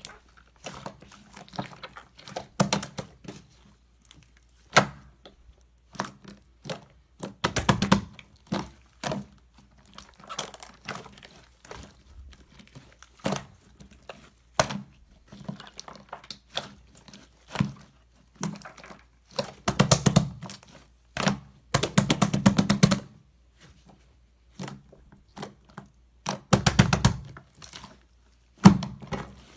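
Slime being kneaded and mixed by hand: a steady stream of sticky clicks, pops and squelches, with a few denser runs of rapid crackling.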